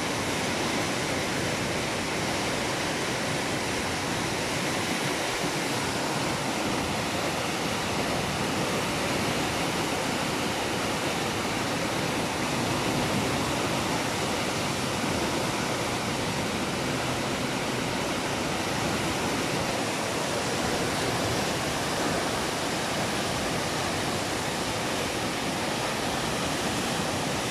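Muddy floodwater rushing down a swollen river, a steady, even rush of turbulent water breaking over standing waves.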